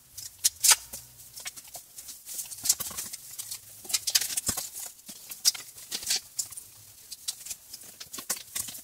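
Cables and plastic plugs being handled and rummaged through, making rustling and irregular sharp clicks and taps.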